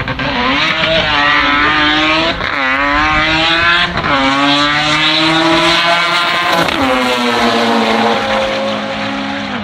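Drag-racing cars accelerating hard down the strip. The engine pitch climbs and drops back sharply at each of several gear changes, and a second, lower engine note holds steady in the latter half.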